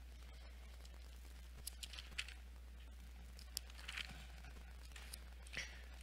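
Faint rustling and crinkling of thin Bible pages being turned by hand, a few short soft rustles coming in small clusters.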